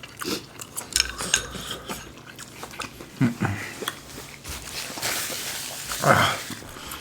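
Close-up eating sounds of spicy Korean army stew: chewing and slurping, with scattered clicks of utensils, and a couple of short voiced sounds from the eaters.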